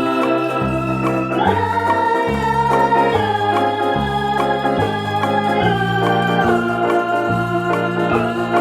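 Background music on an electronic organ-like keyboard: sustained chords over a bass line that steps to a new note about every three quarters of a second.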